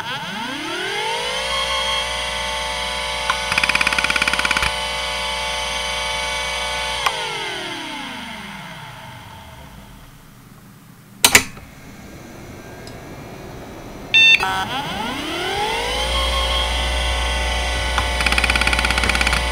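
Seagate ST3211A 3.5-inch IDE hard drive (a relabelled Conner CFS210A) spinning up to 3600 rpm with a rising whine, then a short burst of rapid head-seek ticking. About seven seconds in it spins down, the whine falling away. A sharp loud click follows, then another click, and the drive spins up again with more seek ticking near the end.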